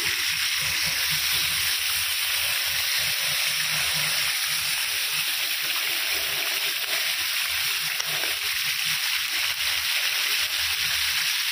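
Marinated chicken pieces frying skin-side down in hot oil in a non-stick pan: a steady sizzle.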